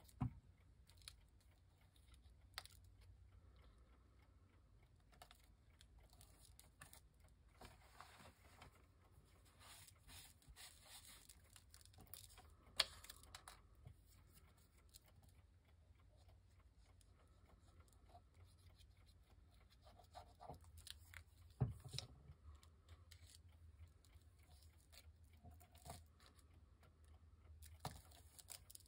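Faint paper-crafting handling sounds at a work table: soft rustling and scraping of paper with a few sharp taps, the loudest about 13 and 22 seconds in.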